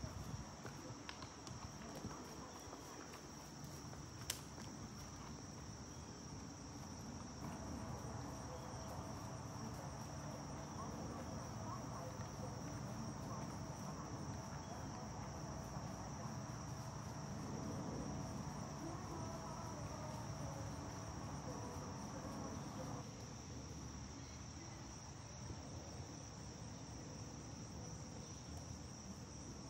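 Steady high-pitched chorus of crickets, with a fainter low rumble beneath it through the middle that eases off near the end. A single sharp click sounds a few seconds in.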